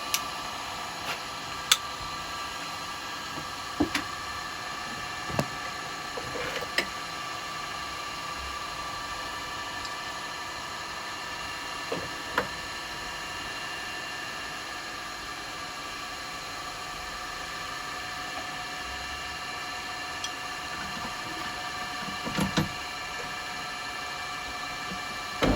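Steady workshop machine hum with faint steady tones, broken by occasional sharp clicks and knocks of tools being handled, as a woodturning tool is readied for sharpening. Right at the end a louder low motor hum starts.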